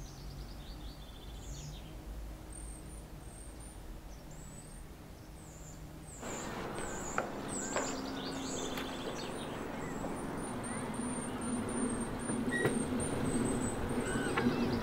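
Small birds chirping and tweeting in short repeated calls over quiet outdoor ambience. About six seconds in, the background gets louder, with a steady low hum and a few sharp clicks.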